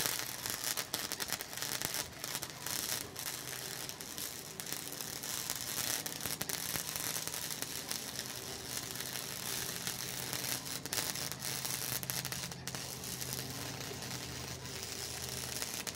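Flux-core wire-feed welder arc crackling steadily as a bead is laid, with a low hum underneath; it breaks off at the very end.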